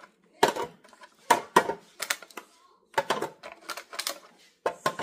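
Eggs and a clear plastic storage container clicking and knocking together as eggs are moved from a carton into it: about ten sharp, irregular clicks, some in quick pairs.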